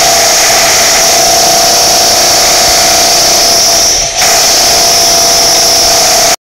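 Power tool at street repair works running loud and steady with a high whine. It dips briefly about four seconds in, then cuts off suddenly near the end.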